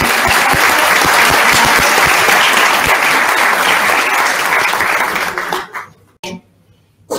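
Audience applauding, a dense steady clapping that dies away about six seconds in.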